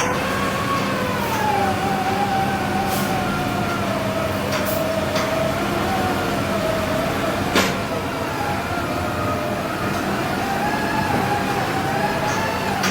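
Sany SR150C hydraulic rotary piling rig running under load while drilling a bored-pile hole: a steady engine and hydraulic drone with a whine that slowly wavers in pitch. A few short sharp knocks come through, the loudest a little past halfway.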